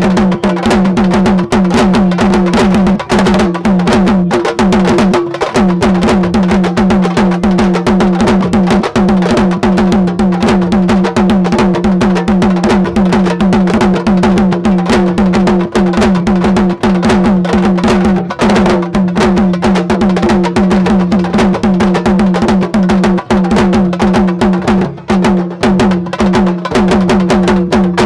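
Sabar-style hand drums played in a dense, fast rhythm with no break, with a steady low tone running underneath.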